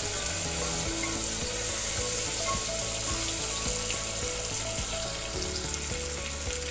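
Onion and tomato sizzling in hot ghee and oil in an open pressure cooker, a steady high hiss, stirred with a wooden spatula.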